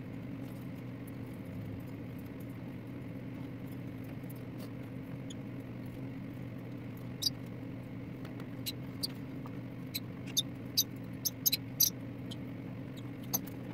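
Steady low hum, with scattered short, high-pitched chirps and squeaks from small pet parrots starting about halfway through.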